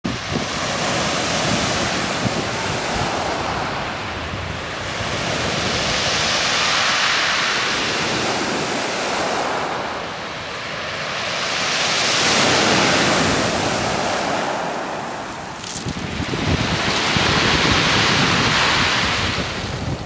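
Waves breaking on a pebble (shingle) beach and washing up and back over the stones: four slow surges about five seconds apart, each a rising and fading hiss with the rattle of the beach pebbles.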